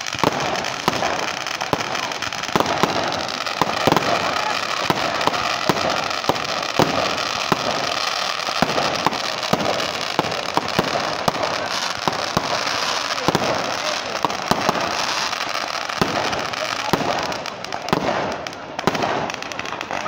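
Aerial fireworks display: a dense, irregular series of sharp bangs and crackles from bursting shells, several a second, over a continuous background din.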